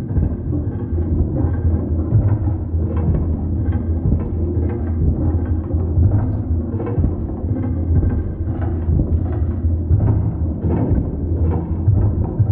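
Rhythmic drumming, about two to three beats a second, over a heavy low rumble that makes the whole sound boomy and muffled.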